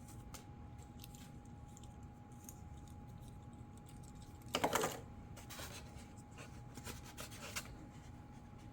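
Small plastic parts and packaging being handled: light clicks and taps, with one brief rustle about four and a half seconds in.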